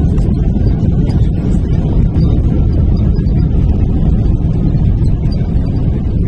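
Cabin noise of an Airbus A319 on its landing roll: a loud, steady low rumble of the wheels on the runway and the engines, heard from a seat over the wing with the ground spoilers up.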